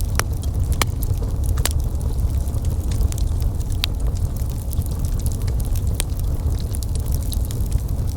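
Fireplace fire crackling, with irregular sharp pops several times a second over a steady low rumble.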